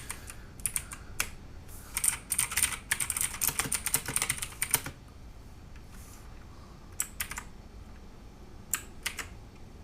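Keys being pressed on a mechanical keyboard with clicky blue Outemu switches (Cherry MX clones): a few single clicks, then a quick run of key presses in the middle, then a few more single presses near the end.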